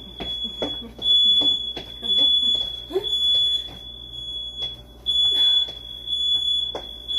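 A house smoke alarm sounds a steady high-pitched tone, set off by burning incense, with occasional thumps underneath.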